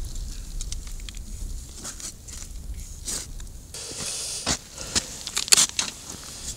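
Wind buffeting the microphone in a steady low rumble, with scattered crunches and knocks of footsteps on the ice surface and handling of gear, most of them in the second half.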